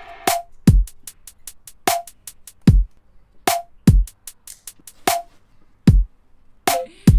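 Electronic music with a drum-machine beat: deep, falling-pitch kick drums, a snappy snare with a short ring roughly every one and a half seconds, and quick, even hi-hat ticks.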